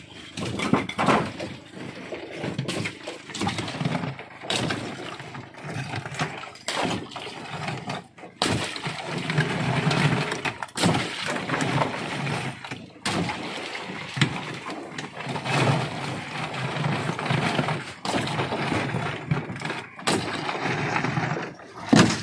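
Ice being broken up and stirred by hand in a plastic fish box of water, making repeated irregular cracking and clattering knocks over a steady rush of sloshing water.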